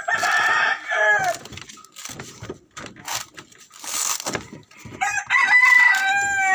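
A rooster crows twice: a long held crow at the start and another about five seconds in, each ending in a falling tail. Between the crows come a few dull chops of a bolo knife striking into a coconut husk.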